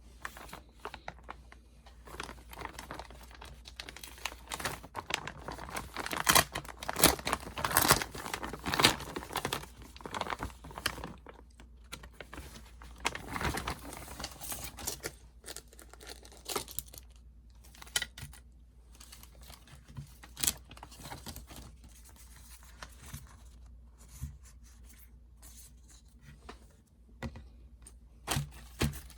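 Packaging being torn and crinkled open by hand, as a parcel is unboxed: a dense run of ripping and crackling, loudest a few seconds in, then thinning to scattered rustles and clicks of handling.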